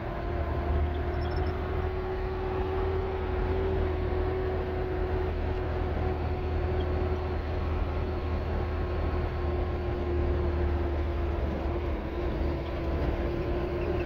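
Vehicle engine running at a steady cruise, heard from inside the cab, with a deep road rumble under a steady hum.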